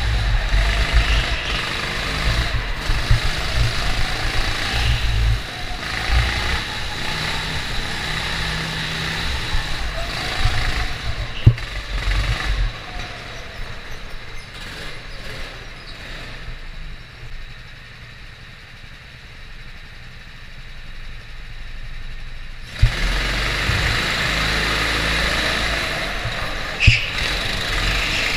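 Go-kart engine running, heard from onboard while the kart is driven, with a few sharp knocks from the kart. About two-thirds of the way through the engine sound falls away to a quieter stretch, then comes back suddenly for the last few seconds.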